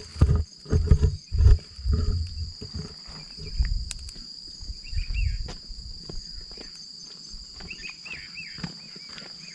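Wind buffeting the microphone in low rumbling gusts, loudest in the first couple of seconds, over a steady high-pitched insect drone. A few short bird chirps come in about halfway and again near the end.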